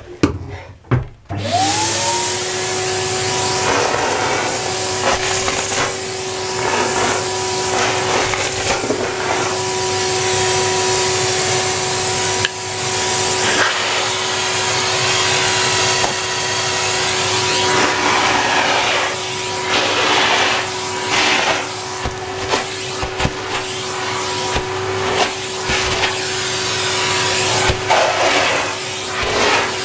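Numatic Henry HVR200A2 580 W vacuum cleaner switched on about a second and a half in, its motor whine rising to speed. It then runs steadily, sucking up sawdust, with the rush of air and debris rising and falling as the nozzle moves.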